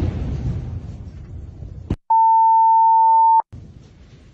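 A low rumbling noise dies away over about two seconds. After a click, a loud, steady, high-pitched electronic censor bleep sounds for about a second and a half and cuts off sharply, leaving faint low noise.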